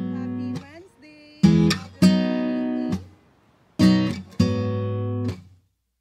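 Background music: an acoustic guitar strumming chords, each left to ring and fade before the next, with short pauses between.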